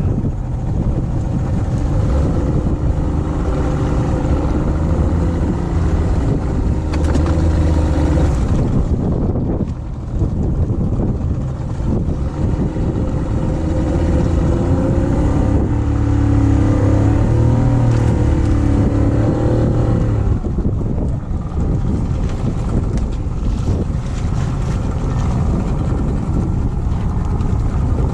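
A boat's motor running steadily, its pitch shifting and strengthening for a few seconds past the middle, with wind on the microphone.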